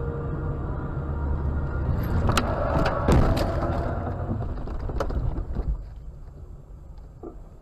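A car driving with a steady road and engine rumble, then crashing: a run of bangs and knocks from about two seconds in, loudest around three seconds, one more bang near five seconds, after which the noise dies away.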